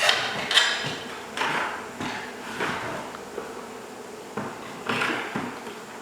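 Irregular scrapes and knocks, about five strong ones, from work at an opened wall cavity holding a honey bee hive, with bees buzzing throughout.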